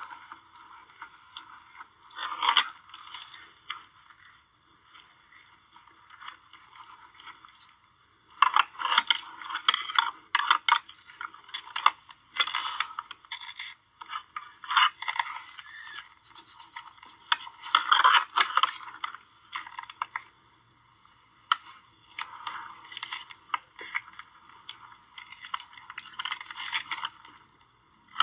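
Two white-tailed bucks jostling at a feeder trough: irregular bursts of scraping and clicking, busiest through the middle, with quieter gaps. The sound is trail-camera audio played through a computer speaker and recorded by a phone.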